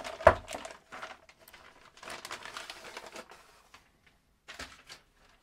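Anti-static bag crinkling as a motherboard is slid out of it, with one sharp knock near the start.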